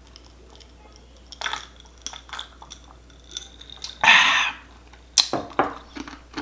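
A person drinking calamansi juice: scattered small mouth and cup sounds, one loud breathy burst about four seconds in, and a few sharp knocks just after five seconds.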